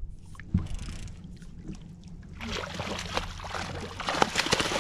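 Water splashing and sloshing beside the boat, growing louder from about halfway through, as a hooked catfish is brought up and thrashes at the surface. A single knock sounds about half a second in.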